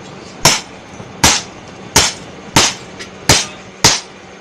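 Hammer blows on hot khukuri steel on the anvil during rough forging, six sharp strikes at a steady pace of a little over one a second, each ringing briefly.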